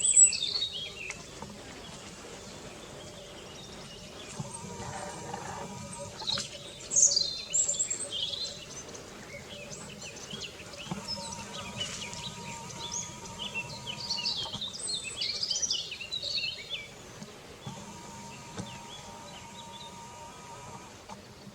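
Several wild birds chirping and singing in short, high phrases at intervals, over a steady background noise of the open countryside. The calls are loudest right at the start and about seven seconds in.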